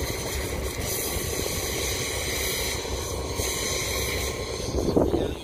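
Fishing trawler's diesel engine running steadily under way, a low rumble with hiss over it, swelling briefly near the end.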